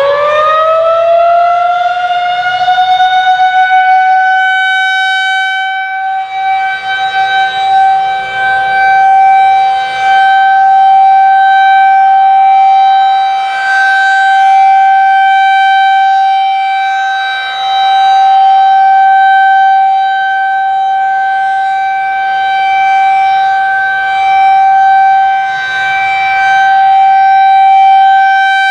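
Federal Signal 2001-SRN rotating electromechanical warning siren finishing its wind-up to full pitch, then sounding a steady single-tone alert. Its loudness swells and fades every few seconds as the rotating horn sweeps past. This is a routine monthly test.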